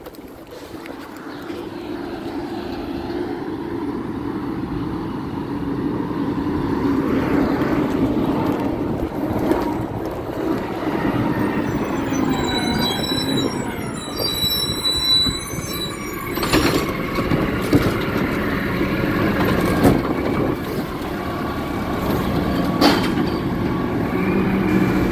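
Peterbilt garbage truck's diesel engine running and growing louder as the truck approaches and pulls up close, with a high squeal around the middle and three sharp clanks in the second half.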